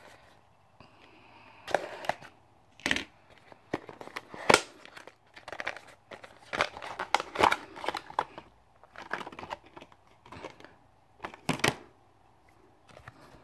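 A small cardboard retail box being cut and opened by hand and its clear plastic insert taken out: irregular tearing, scraping, clicks and crinkles of cardboard and plastic packaging.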